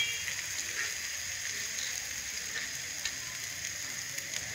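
Cheese omelette frying in a pan, a steady sizzle with a few faint crackles.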